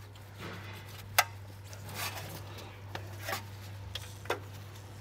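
Light plastic clicks and rubbing as a Porsche 911's front brake pad wear sensor connector is unplugged and its wire handled. There is a sharp click about a second in, then a few softer ones, over a steady low hum.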